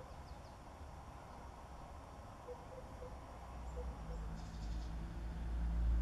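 Faint outdoor ambience with a low rumble that grows louder over the last two seconds. A few faint short pips come in the middle, and a brief patch of faint high chirps about four and a half seconds in.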